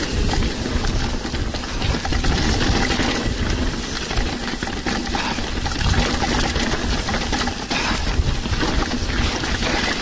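Mountain bike riding down a rough downhill trail: a steady rush of wind on the microphone, with the rattle and frequent knocks of the bike's tyres and frame over the ground.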